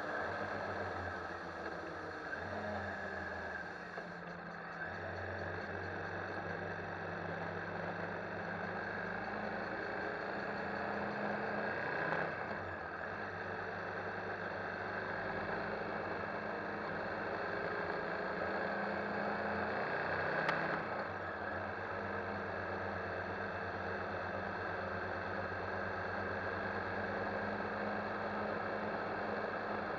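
KTM 1190 Adventure's V-twin engine running at steady road speed, under a spread of wind and road noise. The engine note shifts a few times, with brief louder moments about twelve and twenty seconds in.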